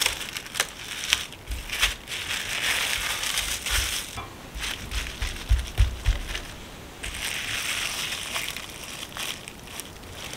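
Plastic cling wrap crinkling and rustling as it is folded around a block of scone dough and smoothed down by hand, with a few soft knocks about halfway through as the dough is pressed flat.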